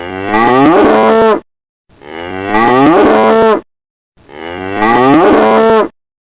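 A cow mooing three times, each call about a second and a half long, rising in pitch and then holding steady.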